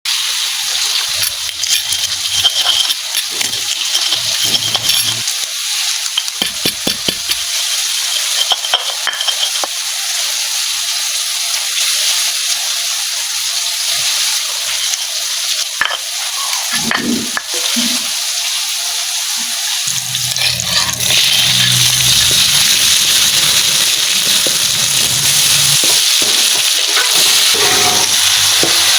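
Stir-frying: food sizzling in hot oil in a pan, with the clicks and scrapes of a spatula stirring it. The sizzle gets louder and fuller about three-quarters of the way through.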